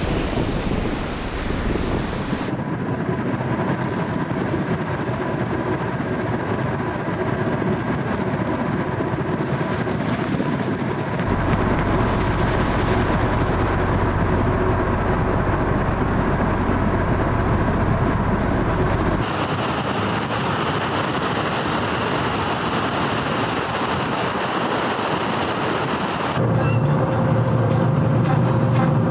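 Steady mechanical noise of the icebreaker Shirase working through sea ice, mixed with wind, its character changing abruptly three or four times.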